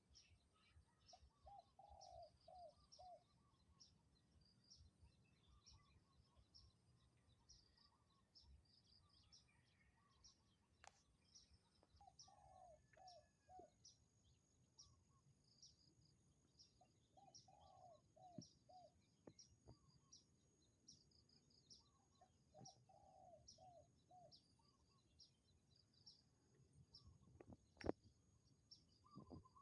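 Spotted dove cooing softly: four phrases about five seconds apart, each a longer note followed by two or three short ones. Small birds chirp high and thin throughout, and a single sharp knock sounds near the end.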